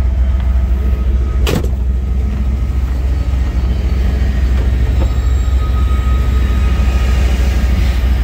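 A 1995 Ford F450's 7.5-litre (460) big-block gas V8 idling with a steady deep rumble. There is a single sharp knock about a second and a half in.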